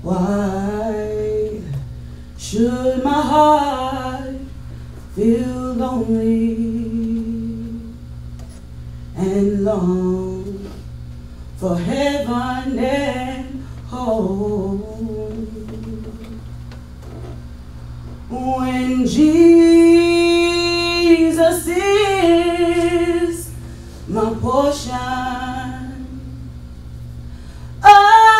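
A woman singing a slow solo in phrases with vibrato, short breaths between lines and a long held note in the middle, over a faint steady low pulsing hum.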